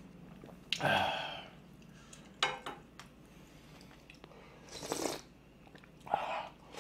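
A man eating ramyeon from a spoon close to the microphone: slurping and chewing in about four short, separate bursts.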